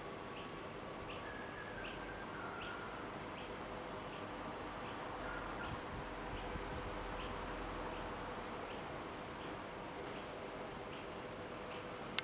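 Short high chirps repeating about every half second over a steady high hiss, like an insect chirping.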